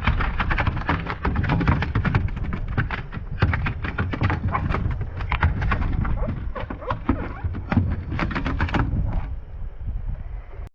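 A freshly landed flounder flopping on the kayak's plastic deck: a rapid, irregular run of slaps and thumps that thins out about nine seconds in.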